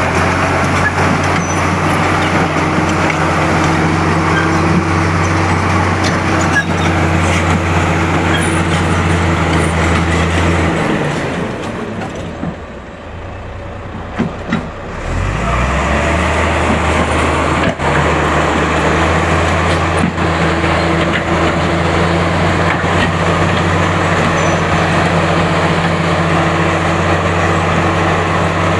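Bulldozer's diesel engine running hard with a steady low note. About eleven seconds in it drops away to a quieter, lower sound, then picks up again about four seconds later and runs on steadily.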